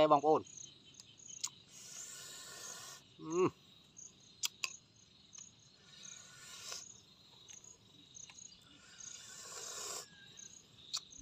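Field crickets chirping steadily in short high pulses, two or three a second. Three times, a couple of seconds of soft crisp rustling is heard: fresh lettuce and greens being handled and wrapped in a slice of boiled pork.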